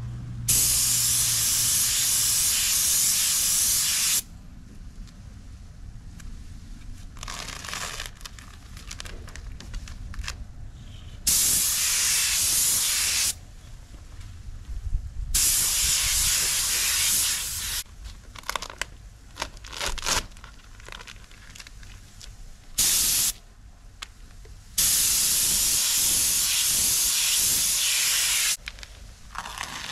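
Air-fed paint spray gun spraying in five hissing bursts of a few seconds each, one of them brief, with quiet gaps between, as paint is blended onto a car panel.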